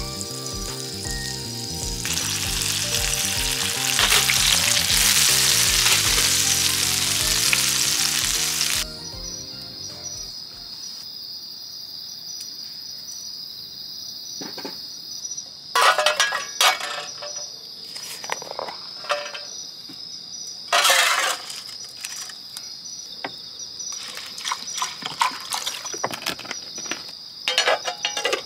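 Oil sizzling loudly as chicken karaage deep-fries, cutting off suddenly about nine seconds in. Crickets then chirp steadily, with scattered clinks and knocks.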